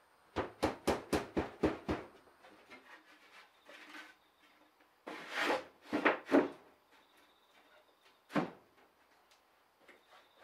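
Knocks on wood: a quick, even run of about seven sharp knocks, then a cluster of heavier knocks a few seconds later and a single knock near the end.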